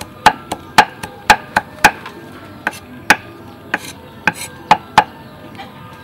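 Cleaver chopping fresh herbs on a thick wooden chopping board: sharp knocks of the blade hitting the wood, about four a second for the first two seconds, then slower and more irregular.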